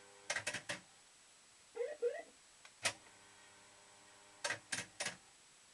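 Maygay Moon Bug fruit machine playing: its reels stop one after another with sharp clunks, a short two-note rising electronic chirp sounds, then a single click as the next spin starts. About three-quarters of the way in, the three reels clunk to a stop again in quick succession.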